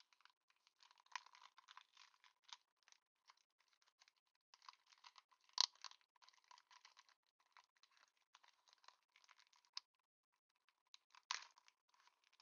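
Faint crinkling and tearing of Pokémon trading-card booster pack foil wrappers, with quick irregular clicks as cards are handled. Two louder sharp crackles come about halfway through and near the end.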